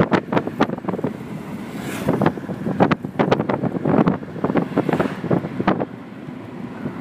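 Wind buffeting a phone's microphone in rapid, irregular gusts.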